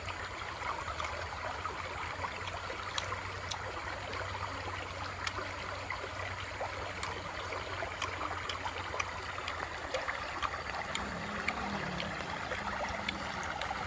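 Shallow stream running over rocks and pebbles: a steady rush of water with scattered small ticks.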